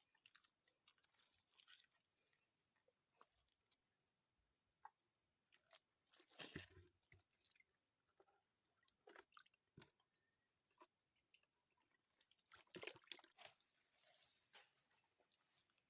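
Near silence: faint, steady high chirring of insects, with scattered soft clicks and rustles close by. The clicks and rustles are loudest about six seconds in and again near thirteen seconds.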